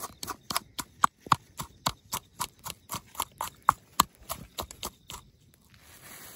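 A rapid, slightly uneven series of sharp clicks or taps, about four to five a second, that stops about five seconds in, leaving a faint hiss.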